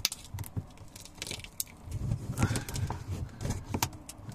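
A long metal tool prying and scraping at a glued bracket under a chipboard shelf, breaking the glue. Irregular clicks, scrapes and crackles, with heavier handling noise a couple of seconds in.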